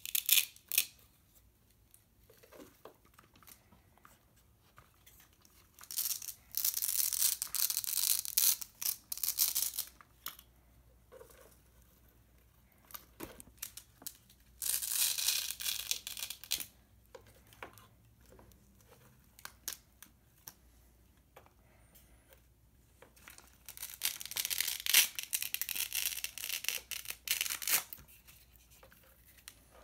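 Velcro fasteners on a cardboard and craft-foam figure ripping apart in several long, rough pulls, with small clicks and rustles of the cardboard parts in between as the figure is folded into vehicle mode.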